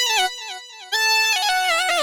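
Instrumental music: a single melody instrument with a bright, reedy tone plays a quick falling run of short notes and goes briefly quieter. About a second in it comes back with a held note and quick ornamental turns, settling onto a lower note at the end.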